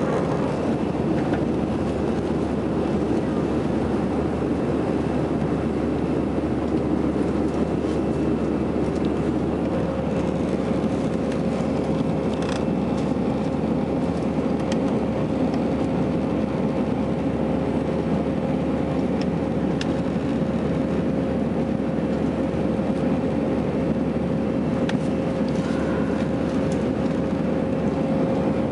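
Airbus A319 cabin during the climb after takeoff: the steady drone of the jet engines and rushing air, with a steady hum tone running through it.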